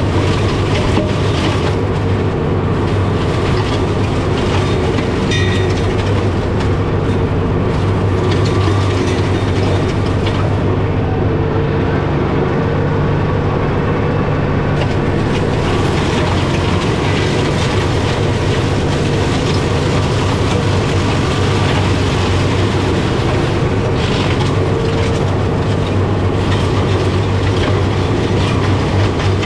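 John Deere 4066M tractor's diesel engine running steadily, driving a Fieldmaster flail mulcher through gorse.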